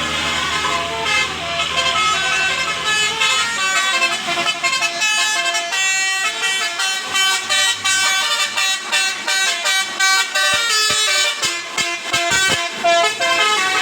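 Bus 'telolet' musical air horn of the Basuri type playing a fast tune of short notes that step up and down in pitch. A low engine hum runs under the first few seconds.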